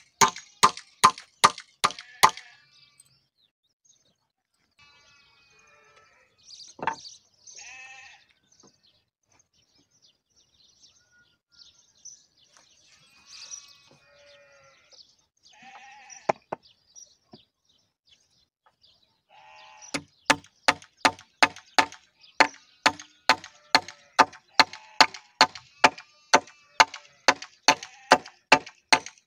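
Hammer driving nails into a timber frame: sharp strikes about three a second, stopping about two seconds in and starting again about twenty seconds in. In the quieter pause between, a few bleating animal calls.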